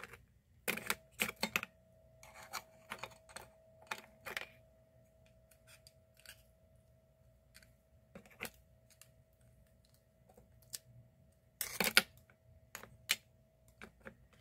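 Red scallop shells clicking and clattering against each other and a ceramic plate as they are picked through with wooden chopsticks and fingers. Scattered light clacks, busiest in the first few seconds, with a louder cluster about two-thirds of the way in.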